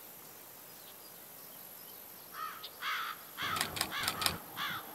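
Crows cawing, a series of harsh calls starting about two seconds in. A quick run of camera shutter clicks comes in from about three and a half seconds.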